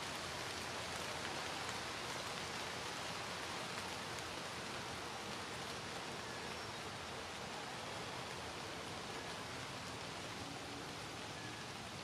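Steady, even hiss of outdoor background noise with no distinct calls or knocks.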